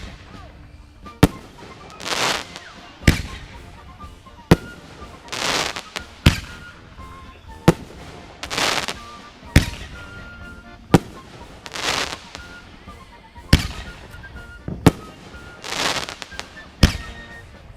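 Fireworks going off in a steady sequence: sharp bangs about every one and a half seconds, with hissing, crackling bursts roughly every three seconds in between.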